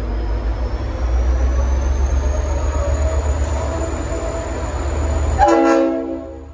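V/Line N class diesel locomotive working hard as it pulls away, a loud low engine rumble with a faint high whine rising slowly. About five seconds in, its Leslie RS5T five-chime air horn sounds one short blast, a chord of several notes.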